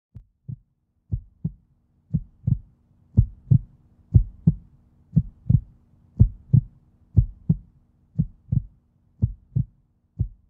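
Heartbeat sound effect: paired lub-dub thumps about once a second, over a faint steady low hum.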